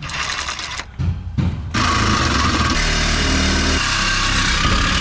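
Power cutting tool cutting through the steel exhaust pipe: a short burst, then about two seconds in a longer, steady, loud cut.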